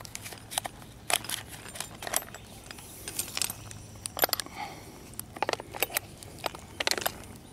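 Metal bungee-cord hooks clicking and clinking against the wire carry handles of a golf cart battery as the cords are hooked on, in irregular bursts of small knocks.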